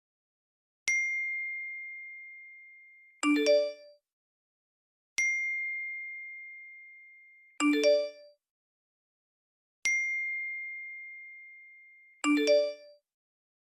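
iPhone notification alert tones played in turn: a single clear ding that rings out and fades over about two seconds alternates with a short cluster of chime notes, three of each.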